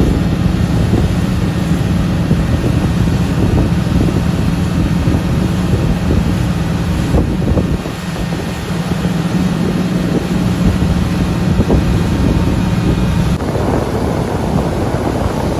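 Motorboat engine running steadily under way, a low hum, with wind buffeting the microphone. About thirteen seconds in the engine hum stops, leaving wind and water noise.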